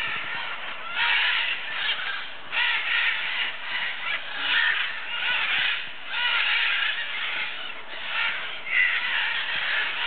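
A flock of red-and-green macaws calling: many harsh, overlapping squawks forming a continuous chorus that swells in waves every second or so.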